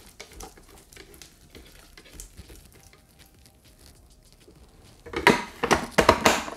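Silicone spatula scraping thick chickpea paste down the sides of a plastic food processor bowl: light scrapes at first, then a run of louder scrapes and taps against the bowl about five seconds in.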